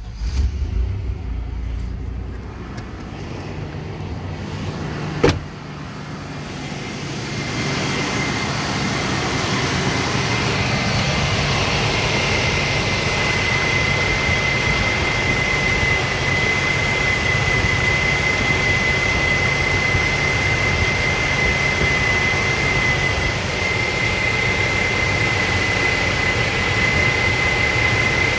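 Chevy/GMC throttle-body-injected engine starting and then idling. From about seven seconds it is heard close over the open throttle body, with a steady high whine over the running noise. A single sharp knock comes about five seconds in.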